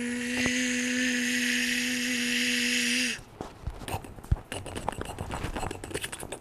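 Microwave running: a steady hum with fan hiss that settles in pitch as it starts, then cuts off abruptly about three seconds in. Irregular clicks and crackles follow.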